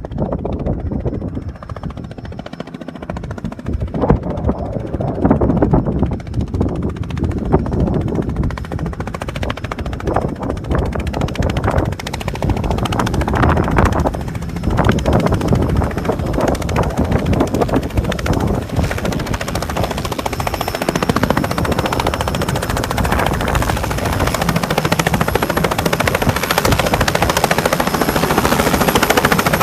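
Light two-blade helicopter approaching and coming in to hover for a landing on snow: a fast rotor beat that grows louder as it nears. A thin high whine joins it over the second half.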